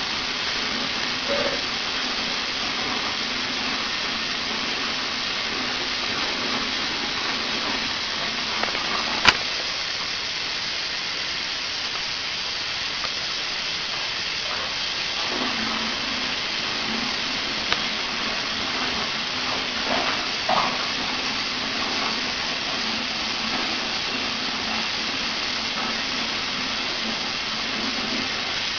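Steady hiss of water running from a shower during a dog's bath, with a single sharp click about nine seconds in.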